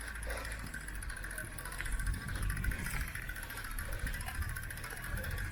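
Bicycle being ridden along an unpaved road: rolling tyre noise with a steady low rumble of wind on the microphone.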